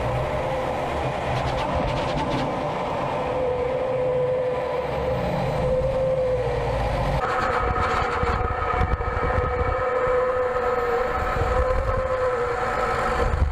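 Su-25 attack jet's twin turbojet engines whining steadily over rushing air, heard inside the cockpit. About seven seconds in, a higher whine joins.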